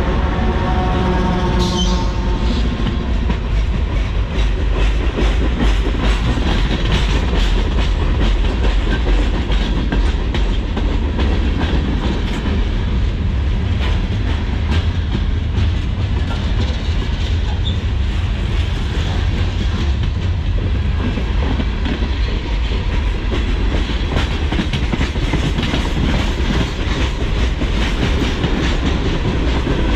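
Norfolk Southern freight train rolling past close by: a steady, heavy rumble with the wheels clacking over rail joints. In the first couple of seconds the passing locomotive's pitched drone drops and fades out.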